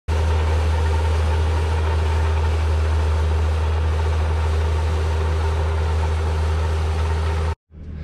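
Tractor engine running steadily with a deep, even drone, cutting off suddenly near the end.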